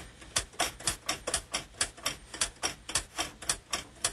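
Manual typewriter being typed on: a quick, slightly uneven run of sharp key strikes, about six a second.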